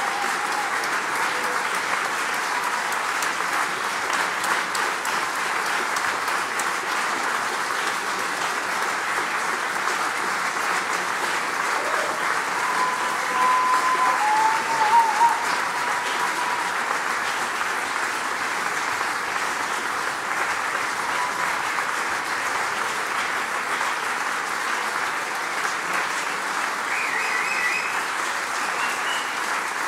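Concert audience applauding steadily, a dense wash of many hands clapping, with a few brief cries rising above it about halfway through.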